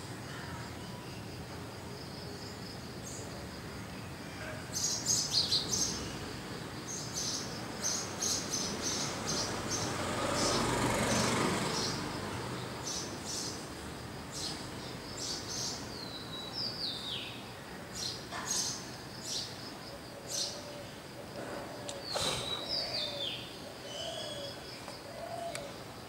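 Small birds chirping in sharp, repeated high notes, with a few short descending calls later on, over a steady high insect whine. A broad rush of noise swells and fades around the middle.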